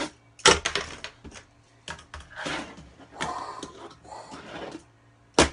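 Tech Deck fingerboard hitting and rolling on a ramp: a sharp clack about half a second in and another near the end, with stretches of rough noise between.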